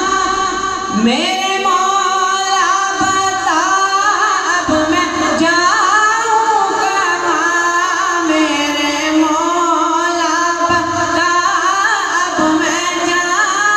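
A boy singing a naat, a devotional song in praise of the Prophet, solo into a microphone. His amplified voice holds long notes with ornamental turns.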